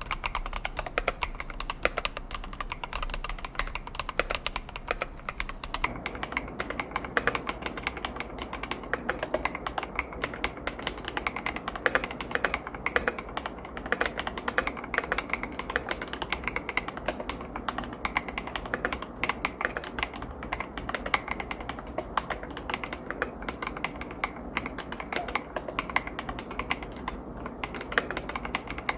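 Continuous fast typing on an Epomaker TH80-X mechanical keyboard with Epomaker Flamingo linear switches: a dense, unbroken stream of keystroke clacks, turning fuller and deeper about six seconds in.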